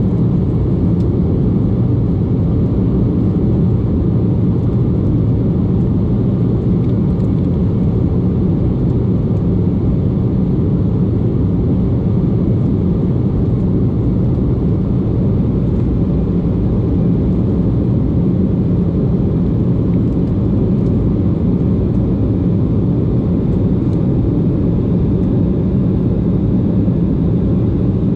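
Steady low rumble of engine and airflow noise heard inside an airliner's cabin in flight, holding at one level throughout.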